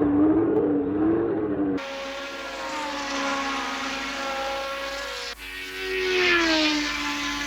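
1970s Formula 1 car engines across three cuts of archive footage: a wavering engine note, then a steady high engine note, then a car passing by with its engine pitch falling steeply.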